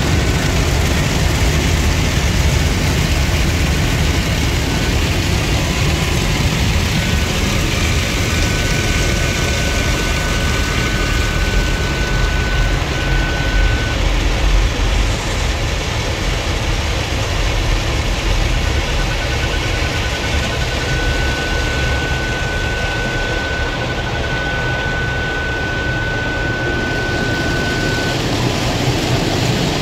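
Automatic car-wash rotating brushes and water spray working over the car's body and windscreen, heard from inside the cabin over a steady low rumble of the wash machinery. A high beep sounds on and off; about 18 s in it starts as quick beeps that merge into one solid tone: the car's parking sensors set off by the brushes close to the car.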